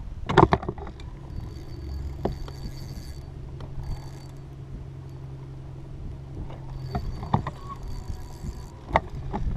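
Handling noise from an angler fighting a fish on a spinning rod in a small boat: a few sharp knocks and clicks of rod and reel, the loudest about half a second in, over a steady low hum and light wind on the microphone.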